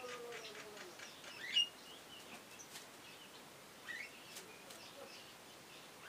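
Short bird chirps and calls over a faint background. The loudest is a quick rising call about a second and a half in, and another comes near four seconds.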